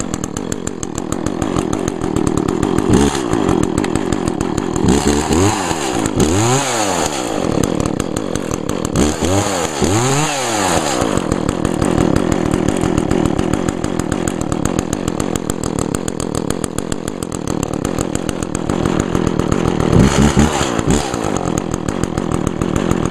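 Echo CS-400 40.2cc two-stroke chainsaw running after a cold start, idling between short throttle blips that rev it up and let it fall back: once about three seconds in, a cluster around six and ten seconds, and once more near the end. It runs steadily, starting and holding idle well after sitting for more than two months.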